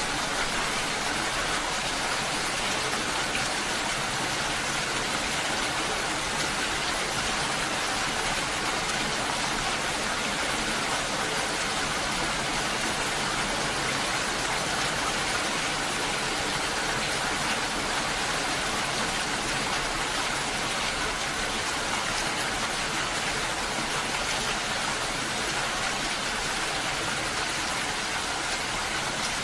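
Steady rain falling: an even, unbroken hiss with no single drops or thunder standing out.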